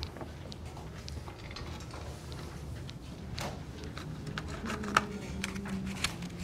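Classroom room tone with scattered small clicks and taps, the sharpest about five seconds in, and a faint low hum coming in a little before it.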